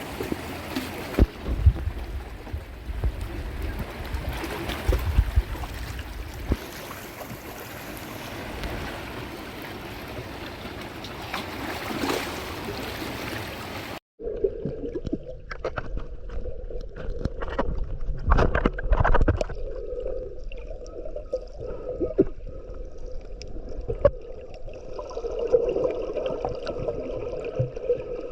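Seawater sounds: rushing water with low thumps on the microphone, then after a sudden cut, muffled gurgling water with scattered clicks.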